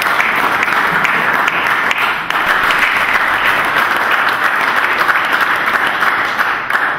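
Applause: a group of people clapping steadily and densely, cutting off abruptly at the very end.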